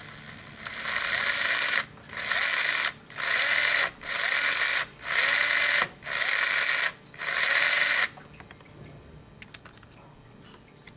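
Micro RC car's tiny brushed electric drive motor and gears whining at high speed with the wheels spinning free in the air, blipped on and off seven times, each burst about a second long and rising in pitch as it spins up. A few faint clicks follow near the end.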